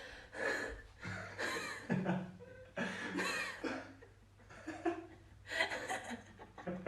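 A person laughing in a run of short chuckling bursts.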